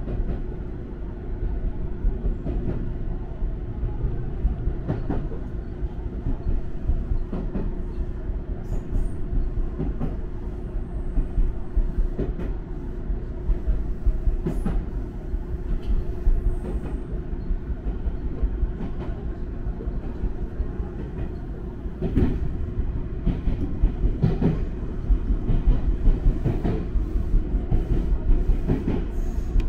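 Electric train of the Hakone Tozan Railway running on the line, heard from the front cab: a continuous low rumble with a steady hum and wheels clicking over rail joints. It grows louder for the last several seconds as the train runs into a tunnel.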